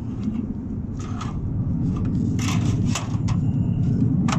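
Sheet-metal gable trim being worked onto a standing seam roof panel: a few scraping rubs and short metallic clacks as it is hooked on at the bottom, over a steady low rumble.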